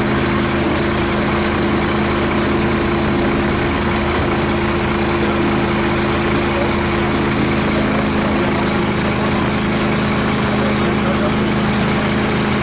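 Engine running steadily at an even speed, a constant hum with no change in pitch.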